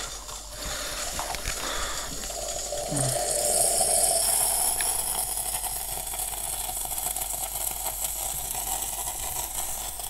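Bosch Tassimo Vivy pod coffee machine brewing into a mug: a steady hiss of hot water and steam pushed through the pod, growing louder about three seconds in.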